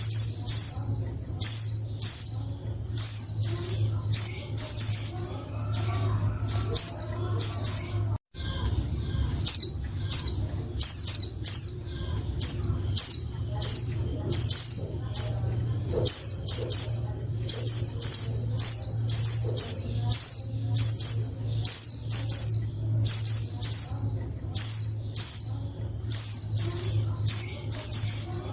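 Female white-eye (pleci) giving its busy, noisy call: rapid clusters of short, high, falling chirps, repeated about twice a second without pause, over a steady low hum. This is the female call that sets male white-eyes singing.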